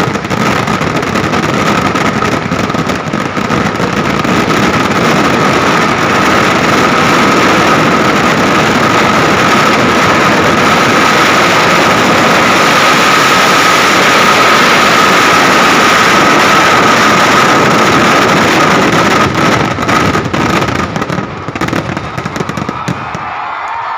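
Kerala vedikkettu fireworks barrage: rapid blasts and crackling merge into one continuous loud roar, with a steady high whistle running through it. Near the end it thins out into separate cracks and dies down.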